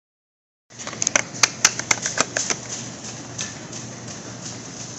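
A quick run of sharp clicks and rattles over about a second and a half, then a steady low hum with background noise.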